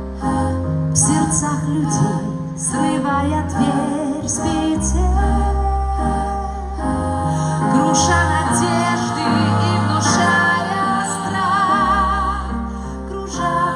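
Music: a song with a woman's voice singing over an accompaniment with a steady bass line, the held notes wavering with vibrato in the last few seconds.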